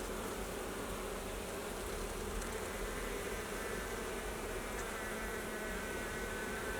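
Honeybees buzzing in a steady mass hum around an open hive, with a higher whine joining about a third of the way in.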